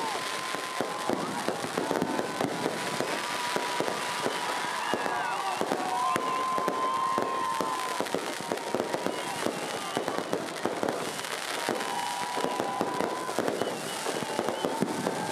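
Aerial fireworks display going off: a dense, continuous stream of crackling and popping bursts, many a second.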